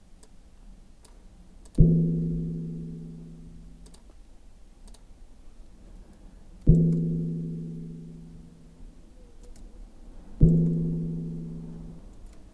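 Recording of a rock being struck, slowed to about 7% of its speed and played back three times. Each play is a sudden deep strike followed by several low tones ringing on and dying away over about three seconds.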